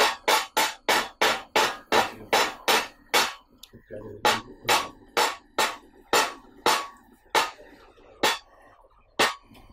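Sharp percussion strikes accompanying a Pava Kathakali glove-puppet performance, about three a second at first, then slowing and spacing out toward the end, each with a short ring.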